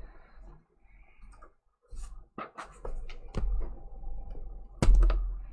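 Hands working the lid of a plastic Chalk Couture paste jar: faint scraping, then a few short clicks, with a sharp knock near the end.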